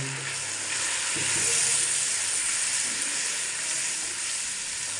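Sliced tomatoes sizzling in hot oil in a steel karahi as a spatula stirs them, a steady frying hiss.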